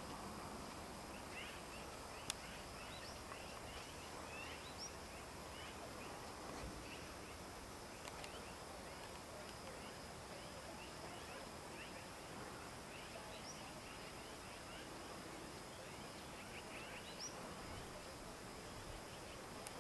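Faint outdoor ambience with birds chirping in the distance: scattered clusters of short, quick rising calls over a low steady hiss, and a single click about two seconds in.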